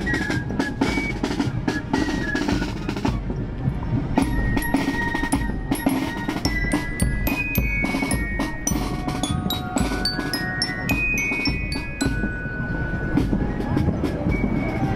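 Marching band of transverse flutes, snare drum and marching bell lyre playing: snare strokes and rolls under the flute melody, with the lyre's bright bell notes coming in about four seconds in.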